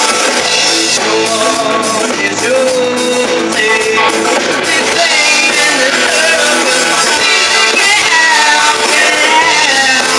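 Live rock band playing: electric guitar, electric bass and a drum kit keeping a steady beat, with a woman singing.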